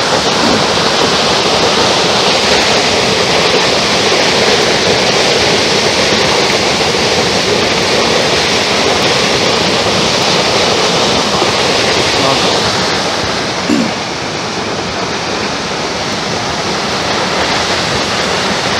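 Steady, loud rushing of water. It softens slightly about thirteen seconds in, with one brief knock just then.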